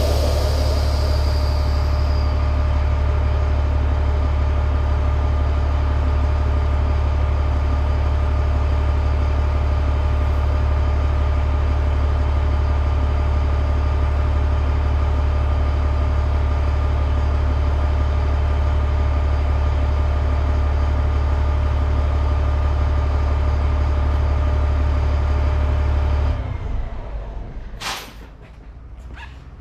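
Air compressor running steadily while the motorcycle tire is inflated to seat its bead, with a brief hiss of air at the start. The compressor shuts off a few seconds before the end, and a single sharp snap follows about a second and a half later.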